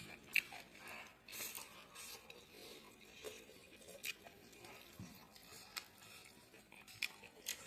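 Eating at a plate of curry: scattered light clicks and clinks of tableware, about seven, the sharpest one shortly after the start.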